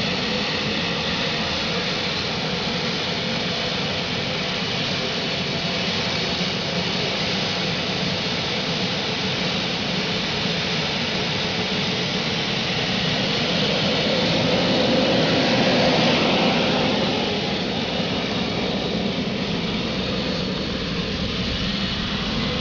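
Aircraft-engined motorcycle running with a steady, loud engine sound that swells louder about two-thirds of the way through, then eases back.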